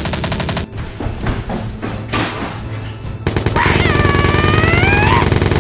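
Rapid automatic gunfire sound effects in two fast bursts, the first stopping under a second in and the second starting about halfway through, over a steady music bed. A long high wavering tone sounds over the second burst.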